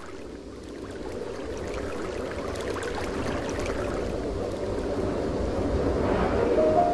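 Rushing river water over rocky rapids, a steady noise that fades in and grows louder. A few held musical notes come in near the end.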